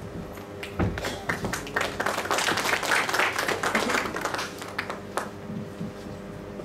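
Audience clapping, starting about a second in and dying away about five seconds in.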